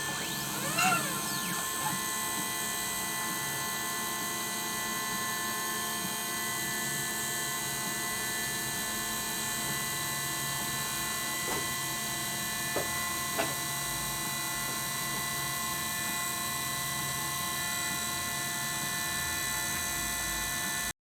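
3018 CNC router running: a steady whine made of many tones, with a brief up-and-down sweep in pitch about a second in as the stepper motors move, and a few short clicks later on.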